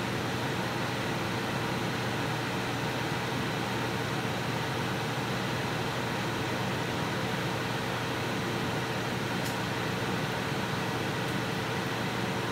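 Steady fan-like hum and hiss with a few faint steady tones in it, unchanging throughout, and two faint ticks in the second half.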